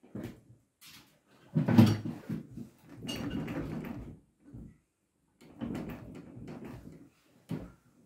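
Creaks and clunks from a wheelbarrow go-kart's frame and front coil-over suspension as a person's weight settles onto the seat, lifts off and settles back. It comes in several bursts, the loudest a knock about two seconds in.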